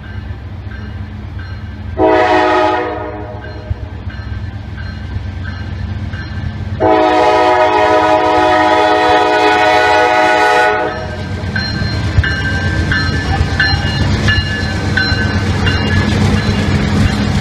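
Norfolk Southern GE C40-9W (Dash 9) diesel locomotives sounding the air horn for a grade crossing: a blast of about a second, then a long blast of about four seconds, over the steady rumble of the 16-cylinder diesels. The engines, working hard and blowing black smoke, grow louder near the end as the lead unit passes close by.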